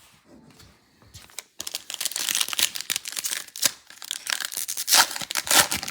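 Foil wrapper of a trading-card pack being torn open and crinkled, starting about a second and a half in.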